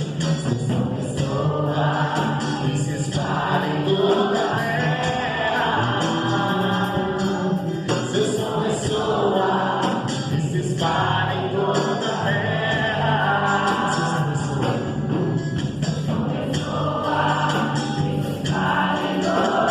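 Christian gospel-style worship song with choir singing over a band with a steady beat.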